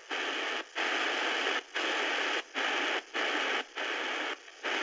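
Shortwave static hissing from the Prunus J-150 BTS radio's speaker with no station tuned in. The hiss is cut by brief silent dropouts about every half second to a second.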